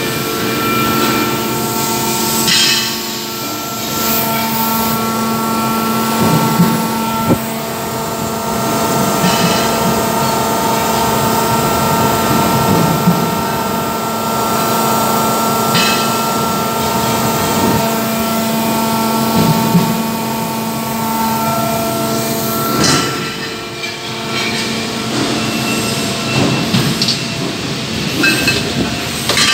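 Loud, steady hum and whine of running factory machinery, several held tones at once, with occasional sharp clanks and knocks. The tones shift a little past the middle.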